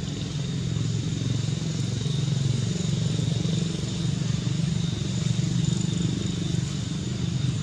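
A small engine running steadily at a low, even pulse, with a thin high whine held steady above it.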